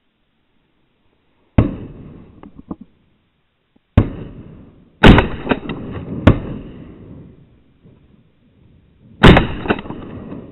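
Shotgun firing: five sharp blasts spread over about eight seconds, three of them close together in the middle, each trailing off over a second or so.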